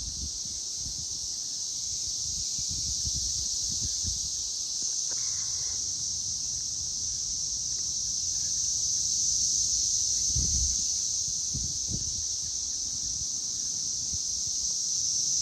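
Loud chorus of cicadas: a continuous high-pitched drone that swells slowly and eases off again, with low rumbles of wind on the microphone now and then.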